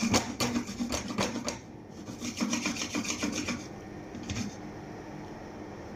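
Dry granulated sugar rasping against the bottom of a stainless steel saucepan as the pan is swirled by hand. It comes in two rounds of about a second and a half each, with a short third about four seconds in. This is the first stage of dry caramel: the sugar is only just starting to melt at the edge of the pan.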